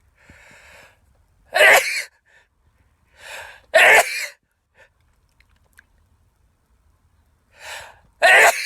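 A man sneezing three times, each sneeze a short loud burst after a quick gasping intake of breath, the first about a second and a half in and the last near the end.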